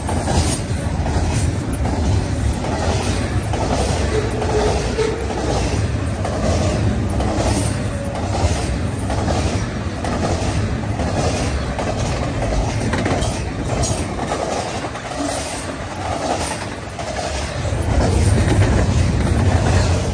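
Double-stack intermodal freight train passing close at speed. The steel wheels of the well cars give a steady, loud rumble, with a regular clicking over the rail joints.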